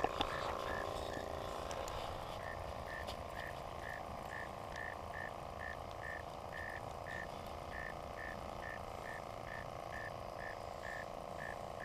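Frogs calling: a steady series of short, evenly spaced notes at one pitch, about three a second, over a faint continuous chorus.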